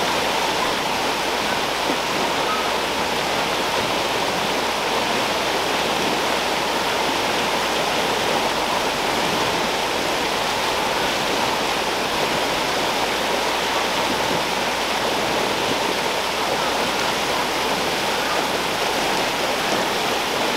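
Oak Creek rushing steadily down a sandstone chute and over small ledges, a continuous, even rush of water.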